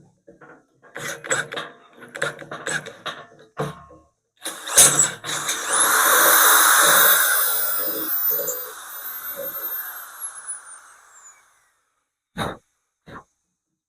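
Corded electric drill spinning up to a high whine and boring into the loader bucket for about five seconds, then winding down. Knocks and clanks from handling come before it, and two sharp clicks near the end.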